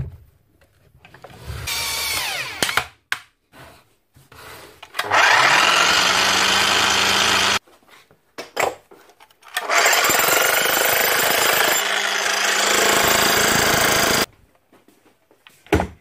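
Large DeWalt electric breaker (demolition hammer) test-run after repair: a brief spin-up, then two runs of a few seconds each, each cutting off sharply.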